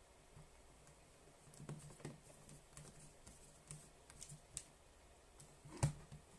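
Faint, scattered small clicks and taps of a Sony Walkman WM-50 cassette player's plastic parts being handled and worked, with one sharper click near the end.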